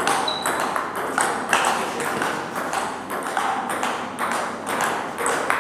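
Table tennis rally: the plastic ball clicking off the bats and the table several times a second, at an irregular rhythm, with overlapping ball hits from a neighbouring table.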